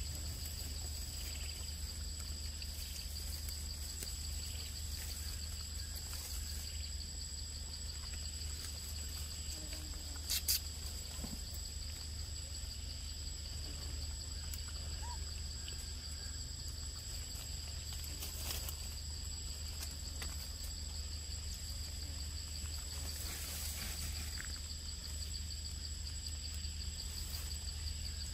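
Steady chorus of forest insects: a continuous high, finely pulsing drone with a second thinner high tone above it, over a low steady rumble. A brief sharp click stands out about ten seconds in, with fainter ones later.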